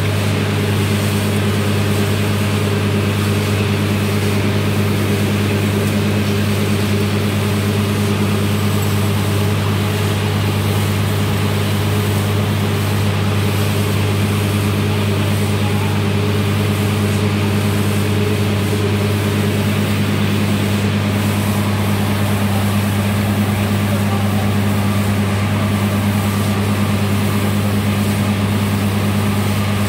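Truck-mounted borewell drilling rig running steadily with a deep, unchanging drone, while compressed air blows water and slurry up out of the bore with a rushing hiss. The bore has struck so much water under pressure that drilling cannot go on.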